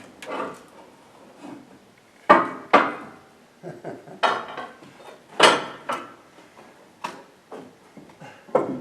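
Irregular metal clanks and knocks, about seven in all, the loudest about two and five seconds in, from pry bars and rollers under a heavy lathe being shifted onto a trailer.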